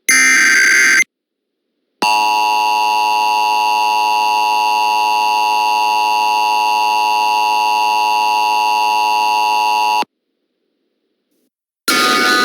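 Emergency Alert System tones, synthesized. First comes the last of the SAME header's data bursts, a buzzy chirping burst of about a second. After a second's pause the EAS two-tone attention signal holds steady for about eight seconds and cuts off sharply; music comes in just before the end.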